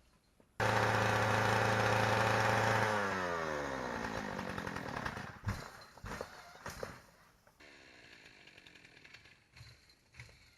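The robot's electric drive motor starts abruptly with a loud whine and holds steady for about two seconds, then falls in pitch as it winds down. A few clicks follow, and then a fainter motor hum starts. The robot's drive gear is failing.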